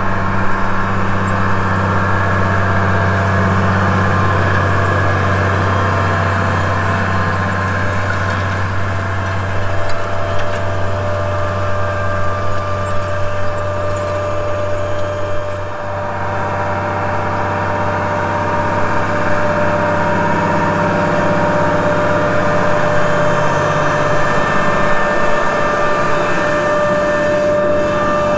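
Case IH tractor engine running steadily under load while pulling a field cultivator, with a strong low drone and steady whine tones. The note shifts about halfway through.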